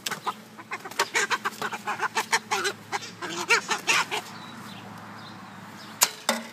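A handheld chicken squawking in rapid, repeated calls for about four seconds, then falling quiet. Two sharp knocks come near the end.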